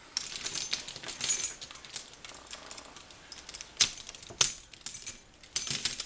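A bunch of American Lock 1100 series padlocks and brass keys jangling on a carabiner as they are handled. There is rattling and clinking at the start, two sharp metal clicks around the middle, and more jingling near the end as one lock is pulled free.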